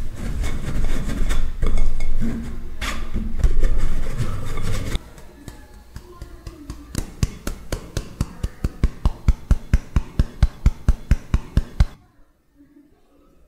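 A metal spoon scraping boiled egg through a stainless steel mesh sieve, a dense rasping rub. About five seconds in this gives way to rhythmic tapping on the sieve, about four taps a second and growing louder, knocking the last of the egg through. It cuts off suddenly about twelve seconds in.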